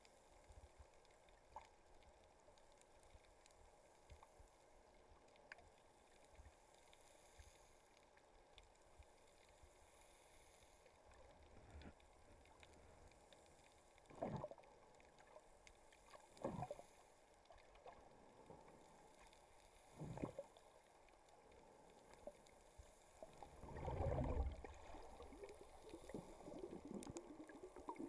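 Muffled underwater sound through a camera's waterproof housing: a faint steady hiss, broken by three short whooshes of moving water in the middle and a longer, louder surge near the end, as the snorkeler swims.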